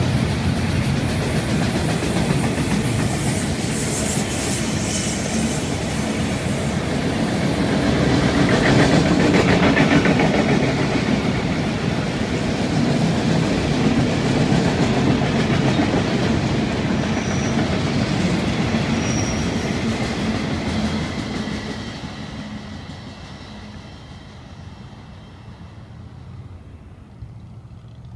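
Enclosed autorack freight cars rolling past, wheels clattering over the rail joints. The sound fades away after about twenty seconds as the end of the train goes by.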